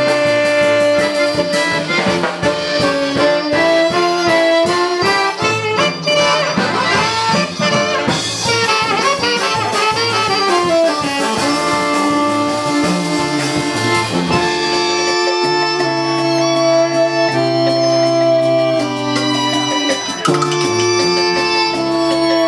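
A live circus-style band plays an instrumental tune: a Piermaria piano accordion, alto saxophone, violin, sousaphone and drum kit. About two-thirds of the way in, the busy melody gives way to longer held notes.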